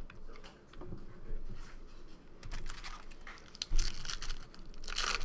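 Trading cards being handled with light clicks, then a card-pack wrapper crinkling and tearing open, loudest near the end, with a dull knock on the table nearly four seconds in.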